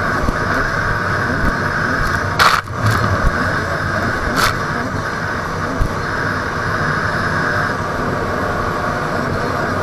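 Two-stroke jet ski engine running steadily at speed, with wind and water rushing past. Two sharp splashes hit the camera, one about two and a half seconds in and another near four and a half.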